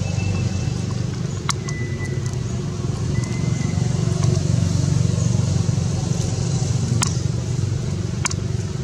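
Steady low hum of a running engine, with a few sharp clicks.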